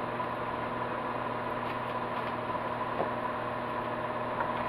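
Steady machine hum, even throughout, with a faint click about three seconds in.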